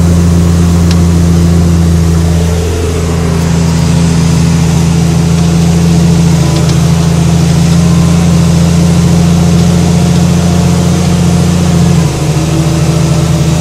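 Case IH Puma 155 tractor's six-cylinder diesel engine running steadily under load while pulling a plough through the soil, its note changing slightly about twelve seconds in.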